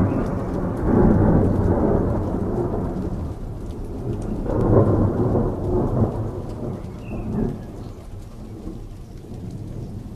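Thunder rumbling over steady rain: the rumble swells about a second in and again around five seconds, then fades away.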